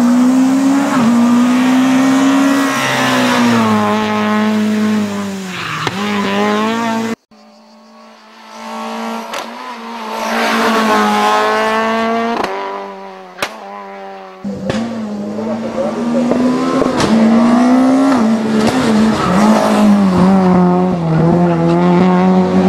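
Turbocharged Renault Clio Kit Car racing flat out up a hillclimb, its engine note climbing through each gear and dropping back at the shifts. About seven seconds in the sound cuts to the car heard more faintly, swelling as it accelerates closer. About fourteen seconds in it cuts back to the car at full noise close by.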